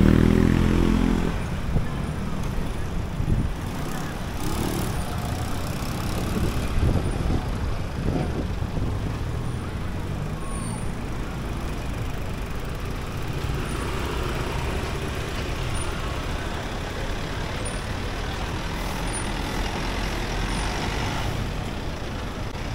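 Street traffic noise: vehicle engines running and passing, with a steady low rumble and a few short knocks. It is loudest in the first second or so.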